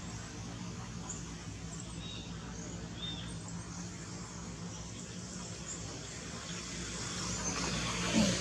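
Steady outdoor background noise with a low hum, a few short faint chirps about two and three seconds in, and a brief rising call near the end.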